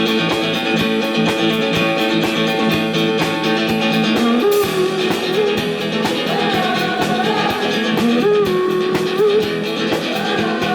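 Rock band playing live: electric guitars holding chords over a steady drum beat, a cymbal crash about four seconds in, then a lead melody with bends and vibrato over the top.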